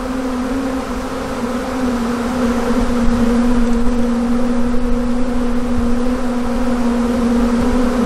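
A huge honey bee swarm buzzing around an open hive, one loud steady hum of many bees in flight, swelling a little louder about two seconds in.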